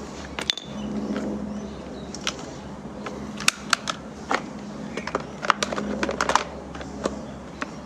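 Scattered sharp clicks and light taps of tools and small parts being handled on a Stihl MS 170 chainsaw while a spark plug is fitted, over a faint low hum.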